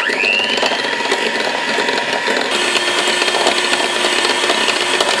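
Electric hand mixer switched on, its motor whine rising as it spins up over the first second, then running steadily as its beaters cream butter and powdered sugar in a glass bowl.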